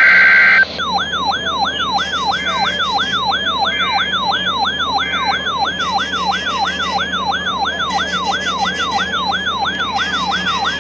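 The last burst of an Emergency Alert System SAME header data tone ends about half a second in. An electronic siren-like attention signal then starts: a tone that sweeps quickly downward and repeats about two and a half times a second, marking the start of a tornado warning alert.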